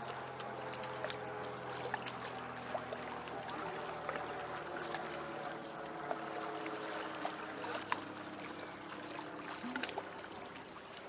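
Small lake waves lapping and splashing against wooden jetty pilings and the shore, a steady patter of little splashes. Underneath, a faint low engine-like hum with a tone that slowly drops in pitch.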